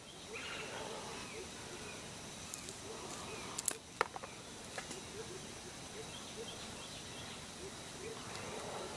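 Forest ambience with faint, scattered chirps and two sharp clicks close together about three and a half seconds in.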